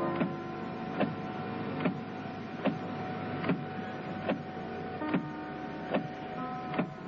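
Car windscreen wipers sweeping back and forth, with a knock at each stroke about every 0.8 seconds, over a steady hum.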